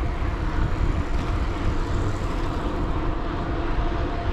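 Wind rushing over the microphone of a camera on a moving mountain bike, a steady low rumble.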